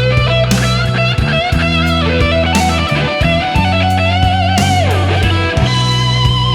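Instrumental music: a lead electric guitar plays a melody with vibrato over held bass notes and drums with cymbal crashes. The guitar bends down in pitch a little before the five-second mark.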